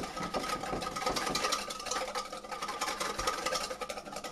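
A whisk beating a thin mustard, olive oil and spice mixture in a stainless steel bowl: rapid, steady scraping strokes against the metal.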